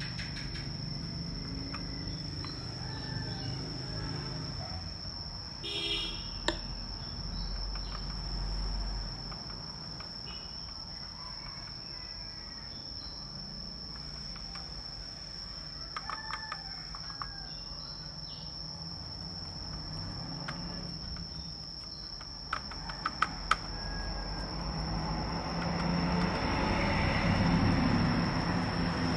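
A steady high-pitched whine over a low hum, with a few small clicks and light scrubbing as a laptop motherboard is cleaned with a brush and handled on the bench.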